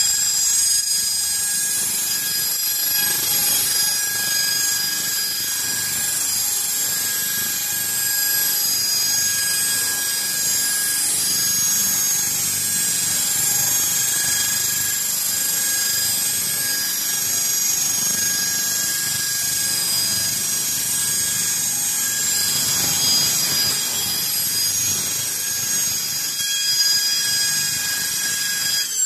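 Spiral duct machine's motor-driven cutting disc grinding through the rotating sheet-metal spiral duct: a steady, high-pitched screech with shrill ringing tones that cuts off abruptly at the very end.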